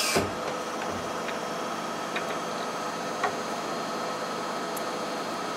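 Henrob self-piercing riveting machine running with a steady hum, a short hiss right at the start, then a few light clicks as its punch assembly is handled, the sharpest about three seconds in.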